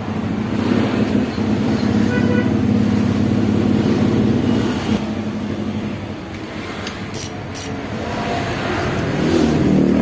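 Suzuki GT750 water-cooled two-stroke triple engine running, with a rough, dense exhaust note; the revs ease off, then climb again near the end.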